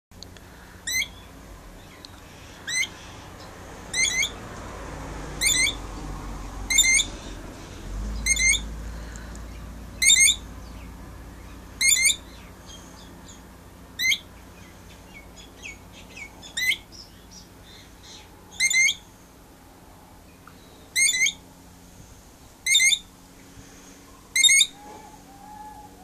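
Rainbow lorikeet screeching: short, shrill, loud calls repeated about every two seconds, with fainter chirps in between.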